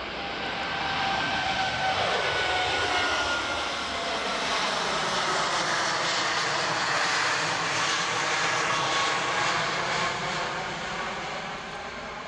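Jet engines of a Boeing 777X, its twin GE9X turbofans, climbing out after takeoff and passing overhead. The noise swells over the first two seconds, holds loud, and fades near the end, with a whining tone that falls in pitch as the plane goes by.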